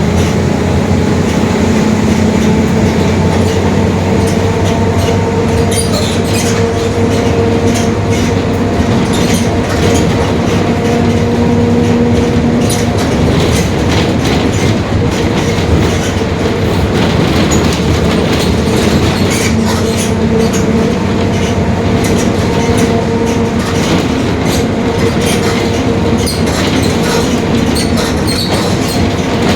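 Mercedes-Benz OF-1721 city bus under way, its diesel engine running under a steady gear whine from a differential that growls, with many small rattles throughout. The whine holds for stretches and shifts in pitch as the speed changes.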